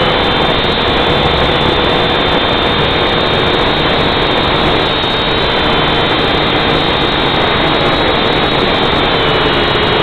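Syma X5C-1 quadcopter's four small motors and propellers running in flight, close to the onboard camera's microphone: a loud, steady whine over a dense hiss, its pitch wavering slightly near the end.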